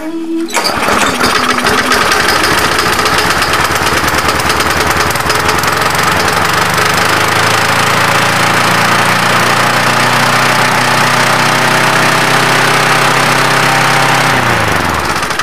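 Briggs & Stratton four-stroke engine on a push lawn mower catching about half a second in and running, ragged at first, then settling into a steady run. It is still burning off oil that flooded its carburetor after the mower was tipped. Near the end its pitch falls as it winds down and stops.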